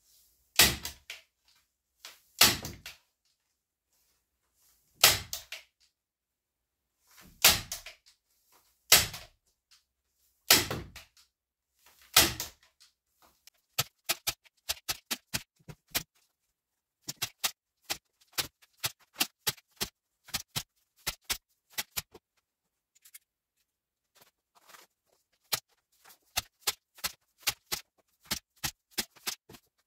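Staple gun fastening a foil-faced insulation strip to a log wall: about seven loud, ringing shots a couple of seconds apart, then from about halfway through, runs of quicker, sharper clicks.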